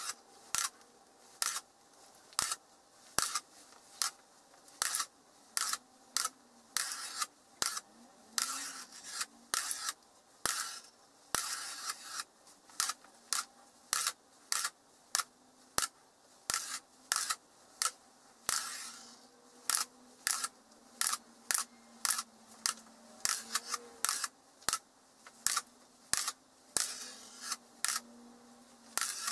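Small steel magnet balls clicking sharply as they snap together, an irregular run of clicks at about one or two a second, some in quick pairs.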